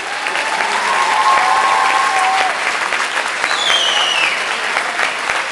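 Audience and performers applauding with dense clapping. A long held cheer sounds over the clapping in the first half, and a whistle falling in pitch comes about three and a half seconds in.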